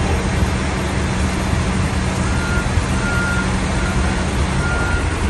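A large vehicle's engine running steadily with a low rumble. From about two seconds in, a reversing alarm sounds in regular short beeps.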